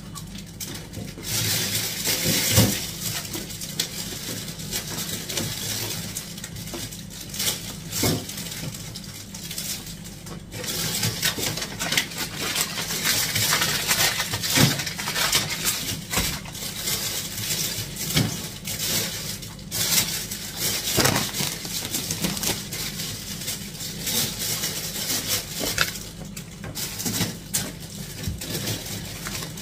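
Groceries being unpacked on a kitchen counter: plastic packaging rustling and crinkling, with scattered knocks and clunks as items are picked up and set down.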